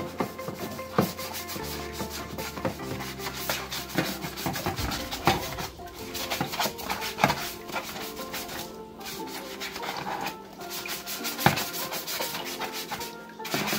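Hand scrubbing a plastic cutlery drawer organizer tray: quick repeated rubbing strokes against the plastic, with a few louder knocks of the tray.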